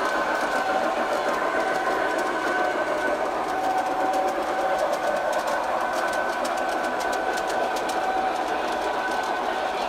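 Model train running along the track: a steady electric motor whine with a rapid clicking of wheels over the rail joints, thickest in the middle.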